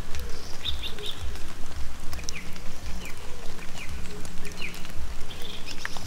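Forest birds chirping: scattered short high chirps and a few quick downward-sweeping calls, over a loud, uneven low rumble.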